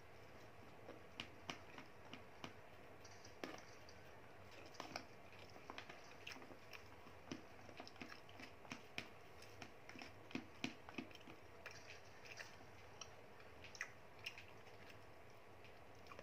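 Wooden spoon clicking and scraping against a plastic food box while rice is stirred, in small, irregular clicks.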